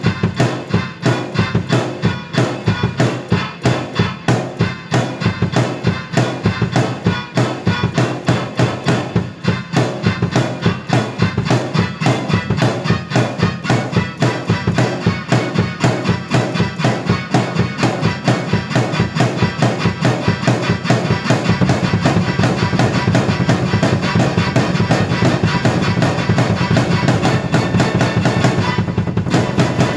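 Drum kit and keyboard played together: a steady, evenly spaced drum beat over sustained keyboard chords. The drumming grows denser and more continuous about two-thirds of the way through.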